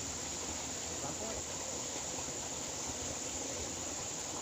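Steady outdoor background noise while fishing from the bank: an even hiss with a constant high-pitched tone running over it, and no distinct events.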